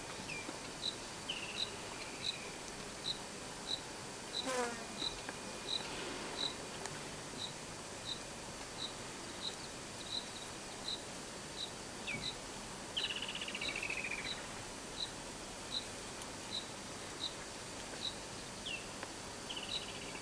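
An insect chirps steadily, a short high-pitched chirp about one and a half times a second, like a cricket. A few short falling calls sound over it, the longest about thirteen seconds in.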